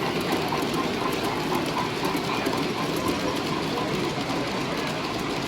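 Model train running along a layout's track with a steady mechanical rolling clatter.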